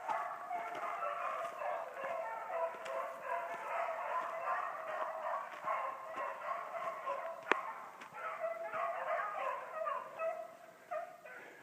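A pack of beagles baying together, many voices overlapping without a break, as the hounds run a rabbit. One sharp click about halfway through.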